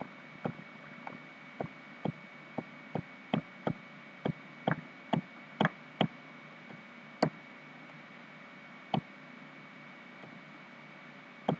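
Computer mouse clicking: sharp single clicks about two a second for the first six seconds, then a few spaced-out clicks, over a faint steady background hum.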